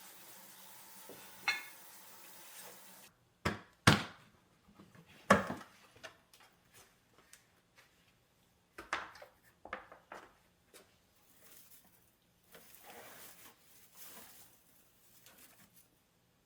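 Dishes and utensils being handled: sharp knocks and clinks, loudest about four and five seconds in, then scattered lighter taps. A faint steady hiss comes before them.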